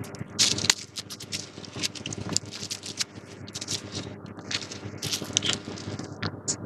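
Close-miked crinkling, crackling and scratching of disposable plastic gloves as gloved hands pick up and handle a paper juice box, in many short irregular bursts over a low steady hum.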